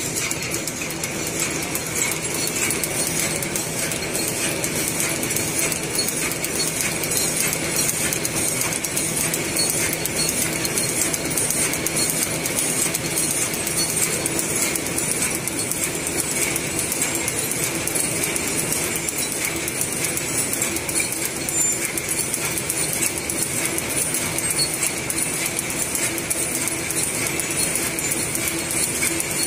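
Automatic horizontal packing machine for disposable plastic cutlery sets running: a steady, rapid mechanical clatter from its conveyor and wrapping mechanism.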